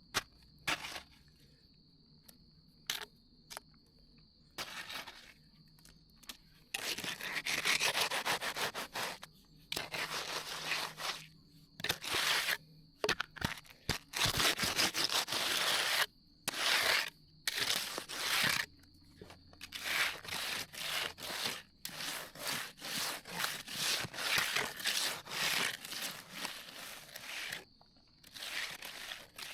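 Hand tool scraping and rubbing over hardened concrete in repeated strokes, a few at first and then a steady rhythm of about two strokes a second, with crickets chirping steadily underneath.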